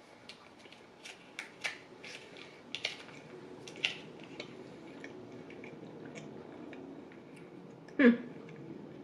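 A fork clicking and scraping against a foil pie tin and the crisp crust of a mini pecan pie as a piece is cut off, in a quick run of light clicks over the first few seconds. About eight seconds in there is one short, loud vocal sound as the bite goes in.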